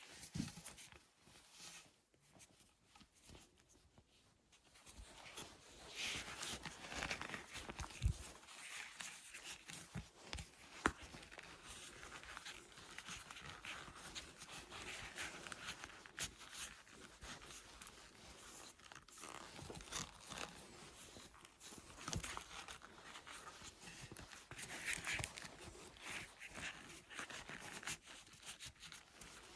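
Hand work on an old axe: irregular scraping and rustling strokes with a few sharp knocks.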